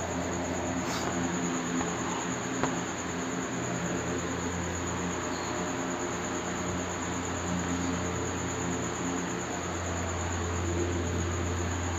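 Duster rubbing across a whiteboard as the board is wiped clean, over a steady low electrical hum and a thin high-pitched whine.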